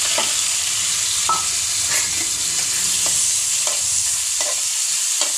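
Chopped onions sizzling in hot oil in a pan, with a spatula stirring and scraping against the pan about once a second.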